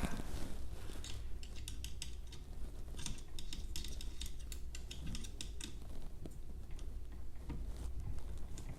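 Scattered light metallic clicks and clinks of small hardware being handled while screws are tightened on a 3D printer's frame brace bracket. The clicks are thickest in the first few seconds, over a steady low hum.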